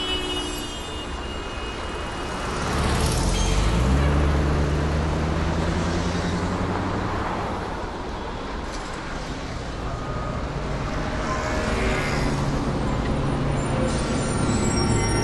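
Street traffic noise, with a heavy road vehicle's engine passing close and swelling in level about three seconds in, then a second vehicle swelling up later.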